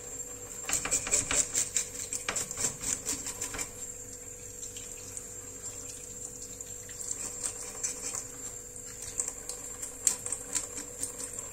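Knife scraping and cutting on a raw fish at the sink, taking off fins and scales: a quick run of scrapes over the first few seconds, then scattered scrapes and clicks, with water in the sink.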